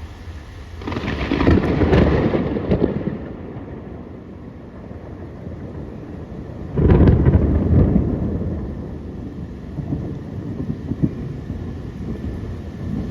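Steady rain with two rolls of thunder: the first builds about a second in and fades within a few seconds; the second starts suddenly around seven seconds in and rumbles away slowly.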